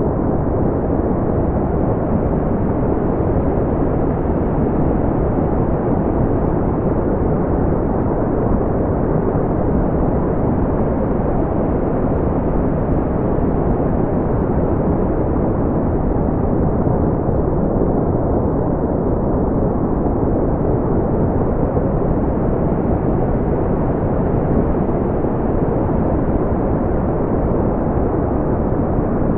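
Steady, deep brown noise: an even low rumbling hiss with no highs, unchanging throughout.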